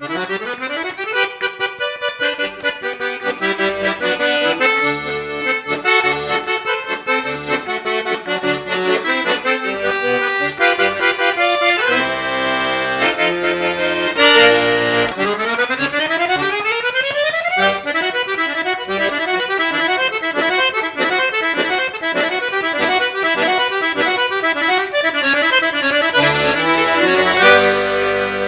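Accordion playing a lively instrumental folk tune, with a fast upward run at the start and another about halfway through.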